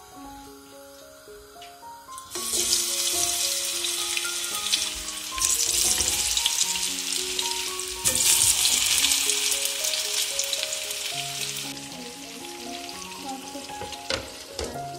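Potato sticks frying in hot oil in a pan, a loud sizzle that starts suddenly about two seconds in, grows louder in steps and dies away near the end, over soft background music.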